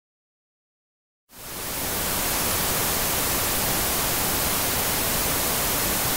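Silence for about a second, then steady television static hiss fades in quickly and holds at an even level.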